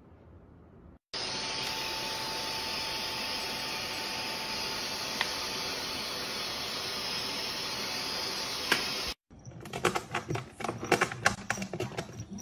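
Cordless stick vacuum cleaner running with a steady rushing noise for about eight seconds, starting and stopping abruptly. After it, a quick run of light clicks and rustles as a cat scrabbles in a wicker basket.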